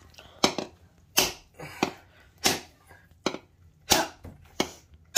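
Stainless steel coconut-opener tool knocking against the hard shell of a brown coconut to crack it open: about seven sharp knocks, roughly two-thirds of a second apart.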